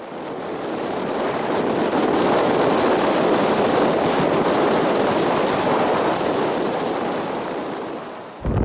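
Wind rushing steadily. It swells up over the first couple of seconds and fades away just before the end.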